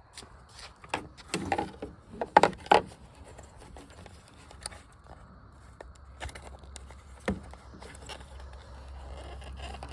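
Hands working a headlight bulb and its clip in the headlight housing: scattered sharp plastic clicks, knocks and scrapes, with a cluster of the loudest knocks about two to three seconds in. A low steady hum comes in about six seconds in.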